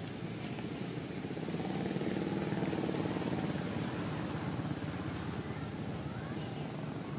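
An engine running steadily somewhere off-picture, swelling louder for a few seconds in the middle and then easing back.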